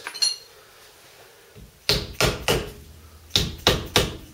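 Mallet tapping a metal dust cap onto a VW T25 front wheel hub to seat it: three sharp taps about two seconds in, a short pause, then four more.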